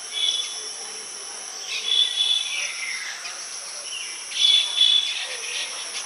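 Baya weavers calling at their nests: short chattering bursts with a held high note, about every two seconds, over a steady high hiss.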